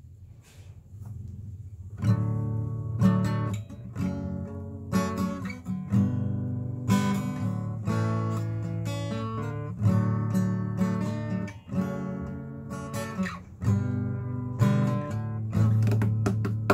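Acoustic guitar strummed in chords. The playing is soft at first and comes in full about two seconds in.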